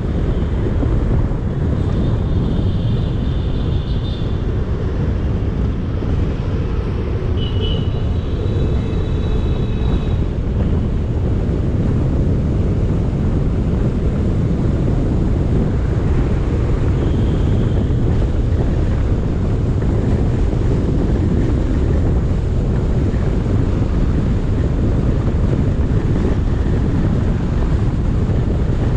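Wind buffeting the microphone over the steady low rumble of a car driving. A few brief high-pitched tones come through in the first ten seconds.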